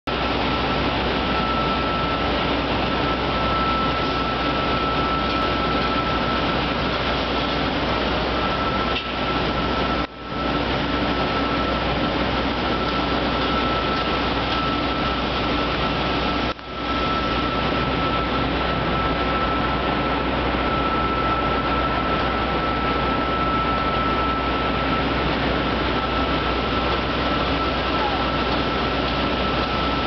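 Steady mechanical din of a city construction site, a continuous wash of noise with a thin, steady high whine running through it. The level dips briefly twice, about a third of the way through and just past halfway.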